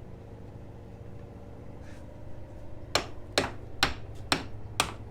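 Hammer blows: five sharp strikes, about two a second, starting about three seconds in, over a steady low hum.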